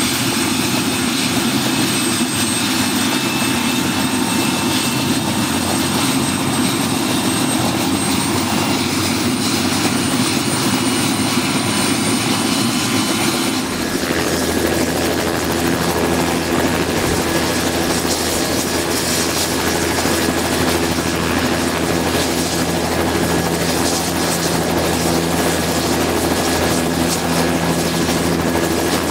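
Bell 206 JetRanger III helicopter running on the ground during start-up, its turbine engine whining steadily with the main rotor turning. About 14 seconds in the sound changes abruptly to a fuller, deeper helicopter sound with a lower hum under the whine.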